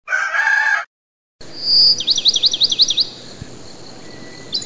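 A songbird calling: one held whistled note, then a fast run of about eight sharp up-and-down chirps, and a second quick run of chirps near the end. Before the birdsong, a short loud burst of sound cuts off within the first second.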